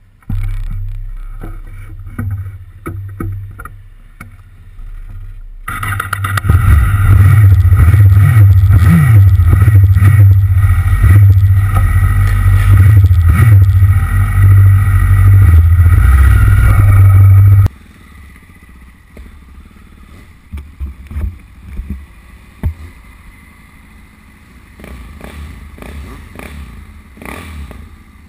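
Motorcycle engines running at idle, a low hum at first, then loud and steady for about twelve seconds before cutting off abruptly. Afterwards a quieter engine sound continues with scattered knocks.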